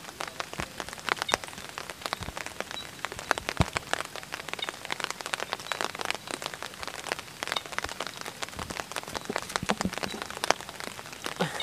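Steady rain falling, with many sharp separate drop hits at irregular intervals.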